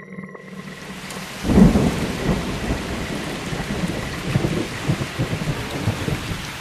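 Rain with thunder: the rain's hiss comes in within the first half second. A thunderclap about a second and a half in is the loudest moment, and low rumbling goes on after it.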